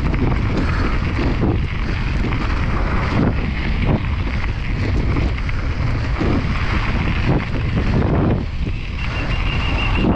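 Wind rushing over the microphone with the clatter and repeated knocks of a downhill mountain bike on rough ground at speed. A thin steady high tone comes in near the end.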